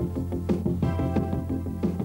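Background music with a steady beat and a sustained bass note.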